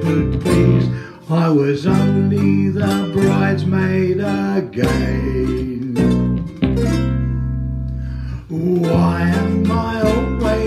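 A small ukulele band playing a bouncy music-hall tune: ukuleles strummed in a steady rhythm over a bass line. A little past the middle, a chord is left ringing for about two seconds before the strumming picks up again.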